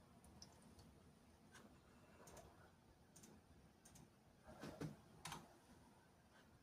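Near silence with faint, scattered clicks, a couple of slightly louder ones about five seconds in.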